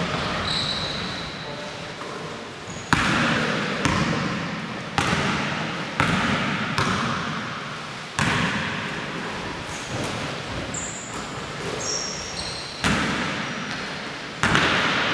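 Basketball bouncing on a hardwood gym floor, about eight bounces at uneven spacing of roughly a second, each echoing through the hall. A few short high squeaks are also heard.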